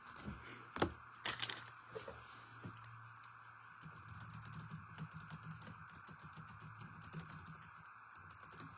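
A series of light clicks and taps, the sharpest a little over a second in, then a run of faint quick ticks over a steady low hiss.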